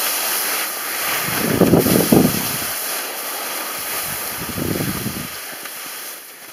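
Skiing down a steep snow slope: skis scraping and hissing over the snow, with wind rushing over the microphone. The rush swells twice, about a second and a half in and again near five seconds, then drops away near the end.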